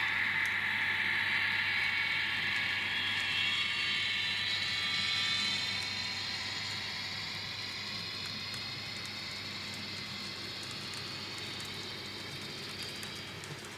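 N scale model passenger train rolling past on the track: a steady mechanical whir and rattle of small metal wheels on rail that slowly fades as the cars go by, with faint light ticks in the second half.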